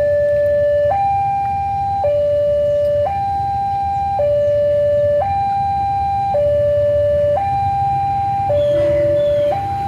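Railway level-crossing warning alarm sounding a steady two-tone electronic signal, alternating between a low and a high tone about once a second, warning of an approaching train. A low rumble underlies it.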